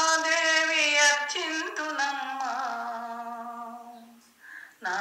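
A woman singing a Telugu devotional song unaccompanied, in long held notes. The phrase fades away about four seconds in, and a new one starts just before the end.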